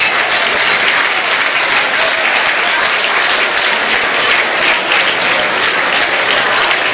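Large crowd of fans applauding steadily, a dense continuous clapping.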